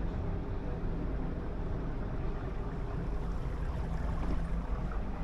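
Steady low rumble and hiss on the open deck of an expedition cruise ship, with no distinct events.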